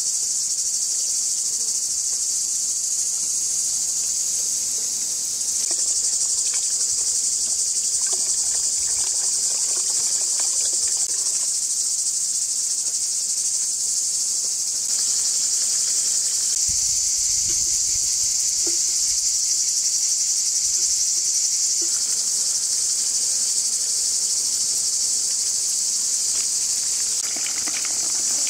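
A steady, high-pitched chorus of insects, cricket-like, running throughout. Near the end, water from a garden hose splashes faintly into a bowl of greens.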